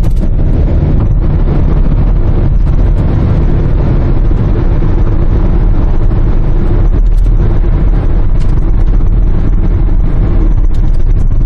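Steady low rumble of engine, tyre and wind noise inside the cabin of a Kia Grand Carnival diesel minivan cruising on the road.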